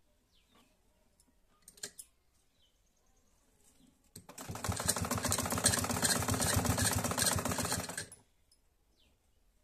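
A black Modern domestic sewing machine runs a seam through fabric in one burst of about four seconds, starting about four seconds in, with a fast, even rhythm of needle strokes. A couple of light clicks come about two seconds in.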